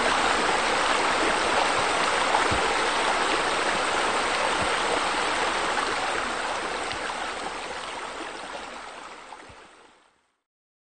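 Steady rush of falling water from a pool's sheer-descent water features spilling into the pool, fading out near the end.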